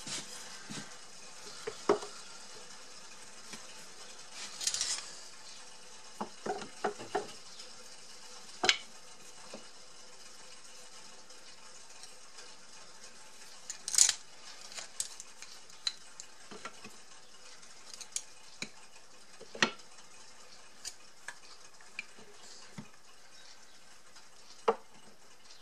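Screwdrivers and a notched wooden holder being handled on a rubber mat: scattered light knocks and metallic clinks, a dozen or so spread out, the sharpest about 14 s in.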